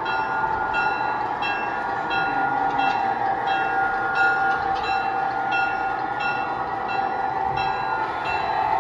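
G scale model diesel switcher's sound unit ringing its locomotive bell about twice a second over a steady engine hum.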